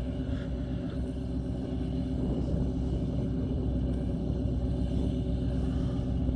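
An engine running at a steady idle, an even low rumble with a constant pitch.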